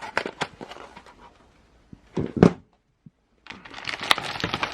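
Hands handling the contents of an RC car kit box: scattered clicks and rustles of packaging, one loud short thump about halfway through, then dense crinkling and rustling near the end.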